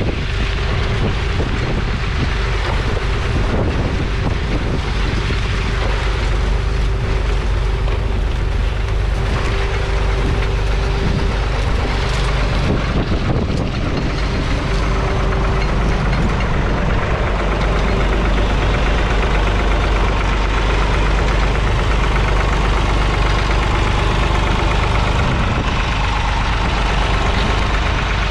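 Massey Ferguson 135's 2.5-litre three-cylinder Perkins diesel engine running steadily with a diesel knock, heard close up while the tractor pulls a two-furrow mounted plough.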